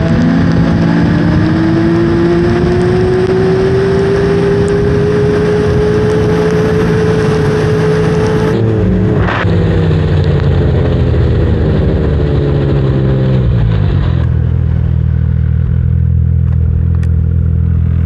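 Snowmobile engine accelerating, its pitch climbing steadily for about eight seconds, then backing off as the sled slows and settling into a low, steady running note near the end.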